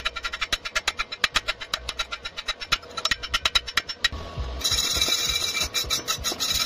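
A chipping hammer taps rapidly on a fresh stick weld bead on steel square tube, about five or six strikes a second, knocking off the slag. About four and a half seconds in, this gives way to a denser scraping hiss with a metallic ring as the bead is scrubbed clean.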